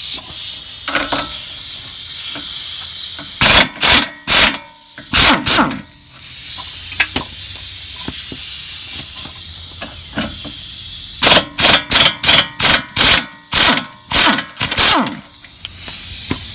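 Air tool run in quick trigger bursts, about five and then about ten, over a steady hiss of air, undoing the bolts and nuts that hold the ball joint to the control arm.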